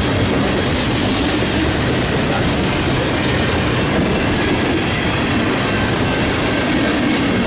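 Manifest freight train passing close by, a loud, steady rumble of steel wheels rolling on the rails.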